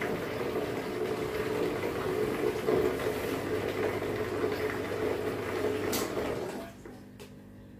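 Two submersible aquarium pumps running, with a steady hum and rushing water as they push water through hoses into plastic gallon bottles. After a click about six seconds in, the sound cuts off as the pumps are stopped at the end of the flow test.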